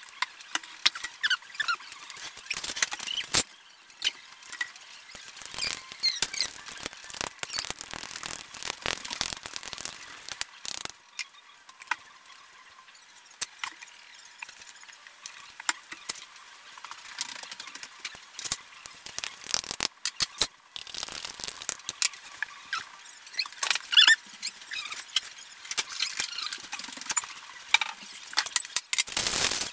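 Condiment squeeze bottles squirting into small glass bowls, with many irregular clicks and clinks of bottles, caps and a spoon against the glass and short squeaky squeals.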